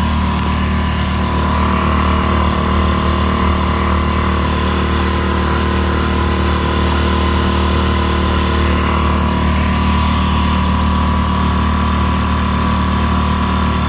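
Mercury 3.5 hp four-stroke single-cylinder outboard running steadily under way at a constant pitch, pushing the kayak along, with water rushing and splashing in the wake.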